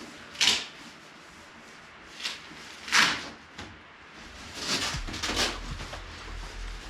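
A few short knocks and scrapes of household objects being handled, like drawers or cupboard doors opening and closing. A low hum comes in about five seconds in.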